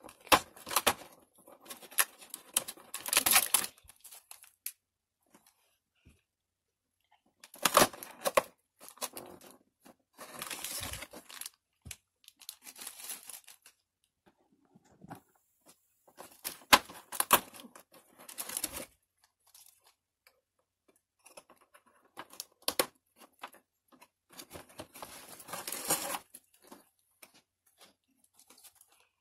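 Cardboard advent-calendar door pushed open and a small plastic bag crinkled and torn open to unpack a toy: several separate bursts of rustling and crackling with quiet pauses between.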